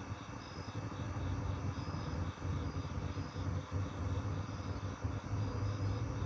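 Crickets chirping in a steady pulsing trill, about four pulses a second, with a higher short chirp from another insect about once a second. A louder low steady rumble runs beneath them.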